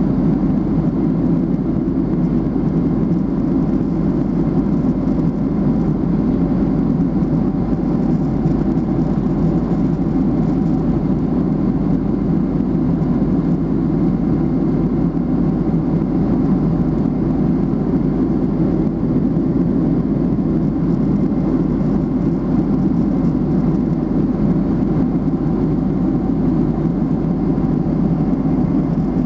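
Steady drone of an airplane cabin in flight, the mixed engine and rushing-air noise heard from inside at a window seat.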